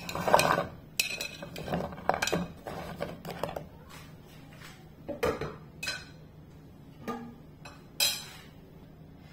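Raw scored chestnuts tipped from a plate into a nonstick frying pan, clattering and knocking against the pan and each other in a quick run of hard knocks, then a few separate knocks.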